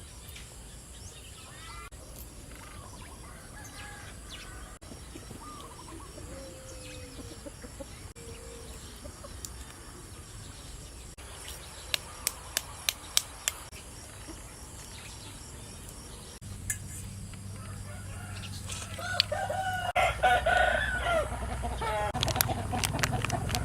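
Chickens clucking, louder and busier near the end, with faint bird calls earlier on. A quick run of about six sharp taps comes around the middle.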